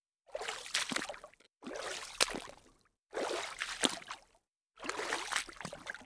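Water splashing in four separate bursts about a second and a half apart, each with a few sharp slaps in it.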